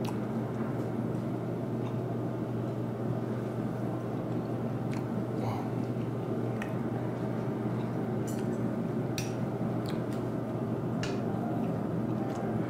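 Chewing of a soft piece of grilled beef tenderloin, with faint wet mouth clicks and squishes scattered through, over a steady low background hum.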